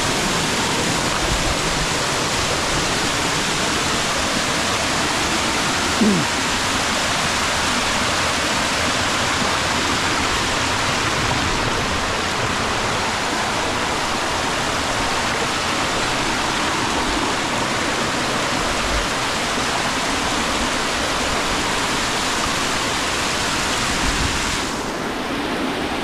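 A small waterfall cascading over rocks into a stream, giving a steady rush of falling water. Near the end the rush turns softer and duller.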